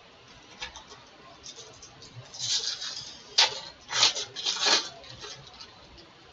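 Foil baseball card pack wrapper being crinkled and torn open by hand, a run of crackling rustles with the sharpest crackle about three and a half seconds in and two more just after.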